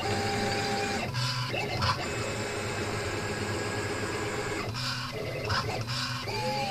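Stepper motors of a homemade CNC plotter whining as it draws, the whine changing and briefly breaking off each time the machine moves onto a new stroke.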